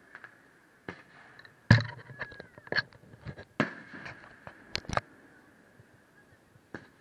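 Aerial firework shells bursting: one loud boom about two seconds in, then a quick run of sharp cracks for about three seconds, and one more crack near the end.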